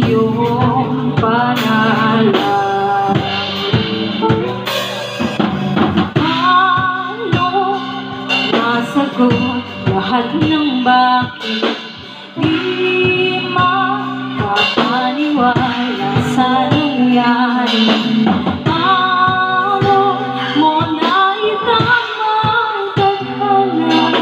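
Small live band playing a song: a woman singing into a microphone over guitar and a drum kit.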